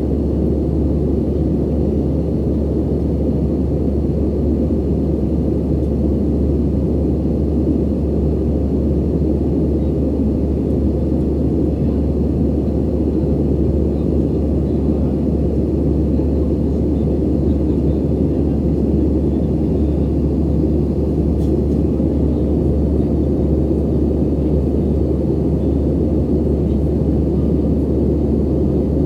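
Airbus A320 cabin noise in flight: a steady low rumble of engines and airflow heard from inside the cabin, even and unchanging.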